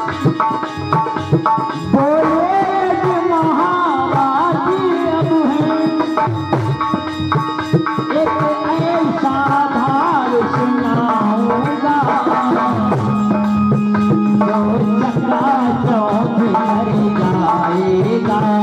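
Man singing a devotional bhajan in a gliding, ornamented melody, accompanied by tabla strokes over a held steady note.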